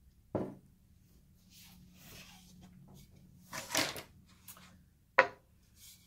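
Handling knocks from a round wooden plate mould on a wooden work board: a knock about half a second in, a short scraping rustle around the middle, and a sharp, louder knock near the end.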